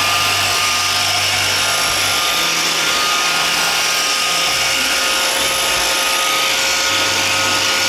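iRobot Roomba 530 robot vacuum running, its vacuum and brush motors giving a steady whine over a whirring hiss.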